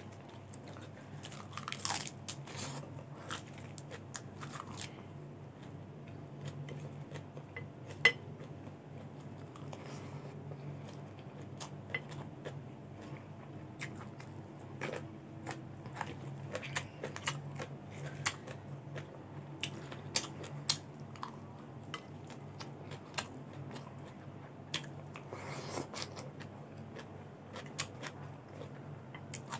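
Close-up chewing and crunching of raw salad vegetables such as lettuce leaves and cucumber, in many irregular bites, with scattered sharp clicks of plastic cutlery and a single loudest click about eight seconds in. A low steady hum runs underneath.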